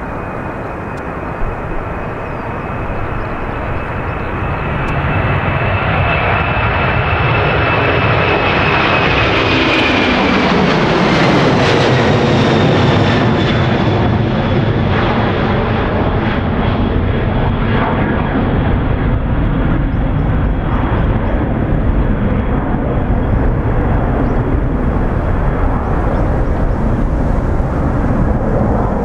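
Boeing 767-300 airliner's twin turbofan engines at takeoff power: a steady high whine over a roar that grows louder as the jet lifts off and comes toward the listener. About ten seconds in, the whine drops in pitch as the jet passes overhead, and the roar carries on as it climbs away.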